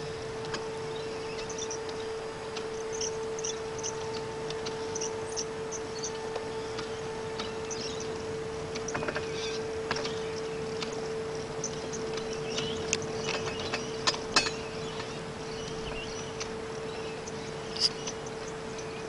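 Battery-electric 5-inch gauge model tramcar running, with a steady hum and a few sharp clicks from the wheels and track, mostly in the second half. Small birds chirp throughout.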